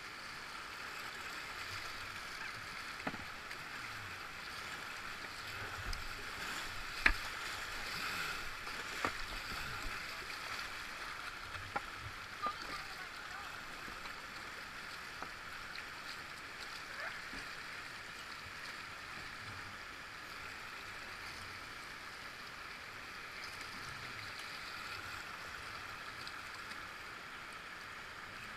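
Whitewater river water rushing steadily past a kayak. A few sharp knocks and taps come through in the first half, the loudest about seven seconds in.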